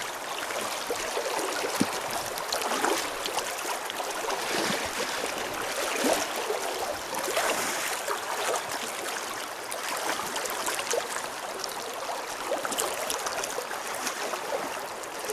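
Shallow river current running and gurgling, with small splashes.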